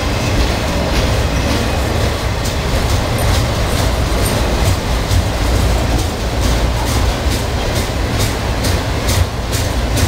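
Freight train of enclosed autorack cars rolling past close by: a steady rumble and rattle of wheels on rail. From about halfway on, a run of sharp clicks comes from the wheels passing over the track.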